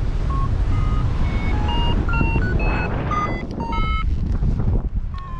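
Paragliding variometer beeping: a quick run of short electronic tones that jump up and down in pitch, the beeping that signals the glider is climbing. Wind rumbles on the microphone underneath throughout.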